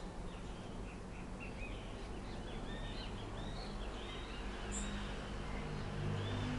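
Outdoor birds chirping: many short, quick calls throughout, over a steady low background hum that grows a little louder near the end.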